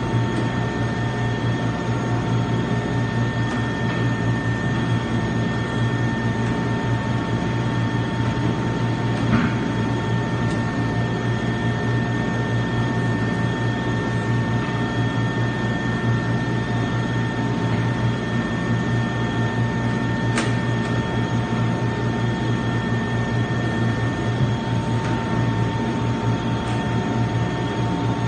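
Industrial meat grinder running steadily: a constant motor hum with a steady whine over it, and a couple of faint clicks.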